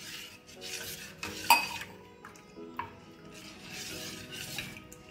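Steel spoon stirring a watery tamarind and jaggery mixture in a stainless steel bowl: swishing swirls of liquid, with a sharp clink of spoon on bowl about one and a half seconds in and a lighter one near three seconds. Soft background music underneath.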